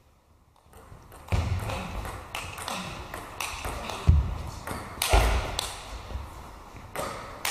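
Table tennis rally: the ball clicks quickly back and forth off the bats and the table, starting about a second in, with a few low thuds mixed in.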